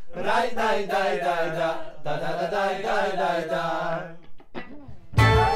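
A solo chanting voice sings two long, wavering melismatic phrases over a low held note. About five seconds in, a full band comes in with a strong beat.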